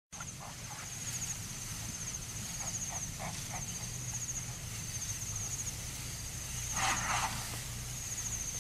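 Steady chorus of insects, a high pulsing buzz, over a low steady hum. A few faint short sounds come through it, and about seven seconds in there is a louder short noisy burst, the loudest sound in the stretch.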